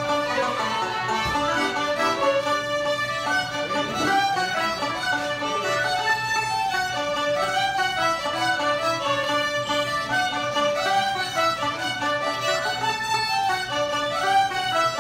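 Irish traditional tune played by a small session group on button accordion, fiddles and banjo, a continuous run of melody with no break.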